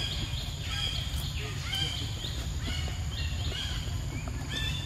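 A bird calling over and over, short high arched notes about twice a second, over a steady low rumble.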